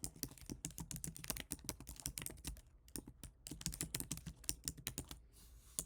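Fast typing on a computer keyboard: a rapid run of key clicks, a short pause about three seconds in, then another run that stops shortly before the end.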